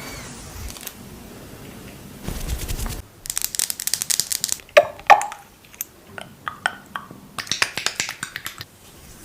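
Close-miked crinkling, crackling and tapping in clusters, starting about three seconds in, with two loud sharp taps around the middle and another burst of crackling near the end.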